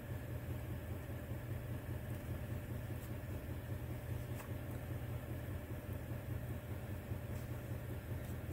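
A 6.6-litre Duramax turbo-diesel V8 idling, heard as a steady low hum from inside the cab.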